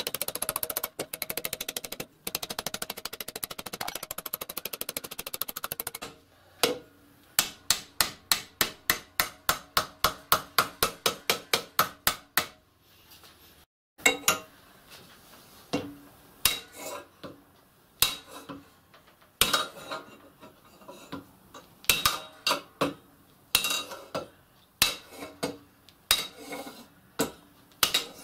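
Hammer blows on a brass strip clamped in a vise, folding it into angle section. A fast run of light taps gives way about six seconds in to an even run of about three ringing strikes a second, then, after a short break, slower irregular blows.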